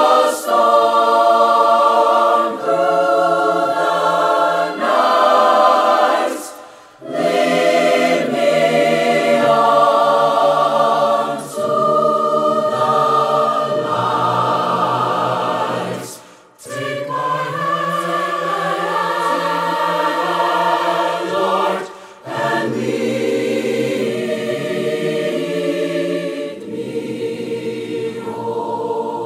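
High-school mixed choir singing in parts, phrases separated by short breaks about 7, 16 and 22 seconds in.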